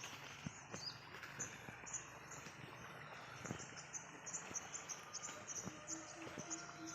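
Insects chirping in a steady run of short, high chirps, with a few faint knocks among them.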